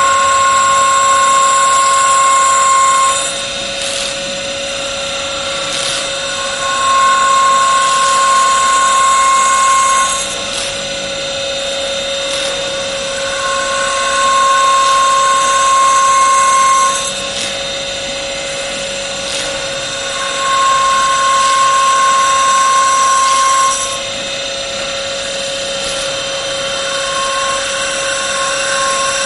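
Automatic CNC wood-turning machine for wooden beads and lamp bases, running with a steady whine. About every seven seconds a louder, higher-pitched cutting pass lasts three to four seconds, then drops back, in a regular repeating cycle.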